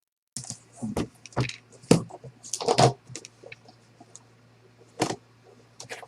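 A trading card box being handled and opened: a quick run of sharp clicks, knocks and crackles in the first three seconds, then single clicks about five and six seconds in.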